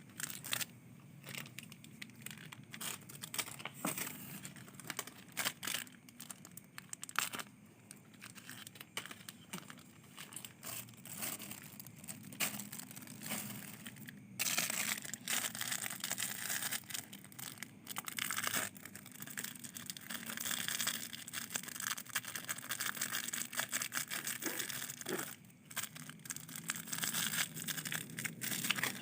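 Irregular rustling and crinkling of material being handled, scattered crackles at first that turn into denser, near-continuous rustling from about halfway.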